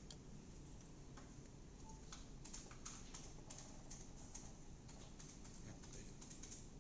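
Faint scattered clicks and taps, mostly from about two seconds in, of an iPhone being handled on an aluminium magnetic wireless charging stand: the phone snapping onto the stand and fingertips tapping its screen.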